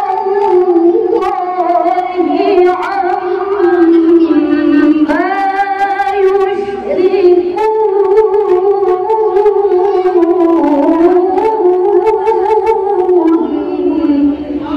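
A woman's melodic Quran recitation (qira'ah) into a microphone: long held notes with ornamented, wavering runs, the phrase ending near the end.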